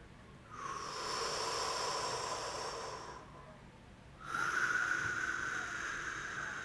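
A person breathing slowly and deeply: one long breath lasting about two and a half seconds, a short pause, then a second, louder long breath starting about four seconds in.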